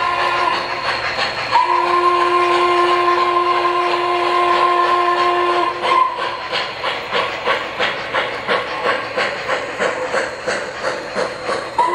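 Model Norfolk & Western steam locomotive's sound-system steam whistle: a blast that ends just after the start, then one long blast of about four seconds. After it the freight cars roll past with an even clickety-clack over the track joints, two to three clicks a second.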